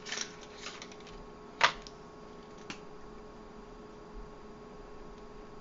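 A lipstick being handled: one sharp click about a second and a half in, as its cap comes off, and a fainter click a second later, over a faint steady electrical hum.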